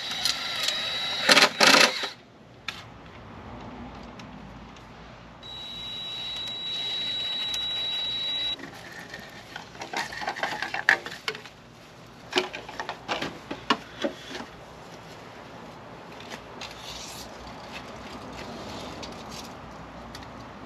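Hollow knocks and clatter of bamboo poles being handled and set against each other, loudest in the first couple of seconds and again in a run of knocks around the middle. A steady high whine runs for about three seconds about a quarter of the way in.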